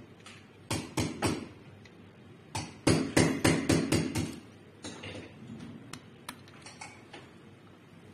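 Small metal and plastic parts of a fluid head clicking and knocking as they are fitted and seated by hand: a few single knocks, then a quick run of about six louder knocks around three to four seconds in, then lighter clicks.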